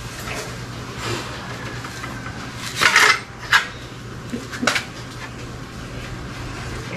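Aluminium sliding-window frame and its glass pane clinking and clattering as the glass is fitted into the panel, with the sharpest knocks about three seconds in, another just after, and one more near five seconds.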